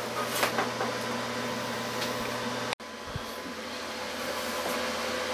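Steady fan-like room noise with a low electrical hum, broken by a few light handling clicks and a low thud shortly after an instant's dropout about three seconds in.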